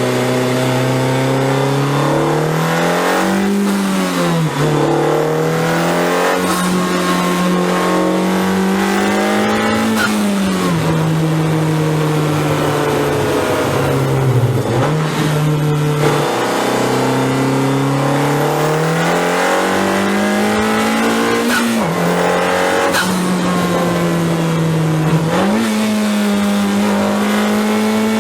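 Honda Civic Type R FK8's turbocharged K20 four-cylinder pulling hard through the gears. Its pitch climbs steadily and drops back sharply at each upshift, about five times.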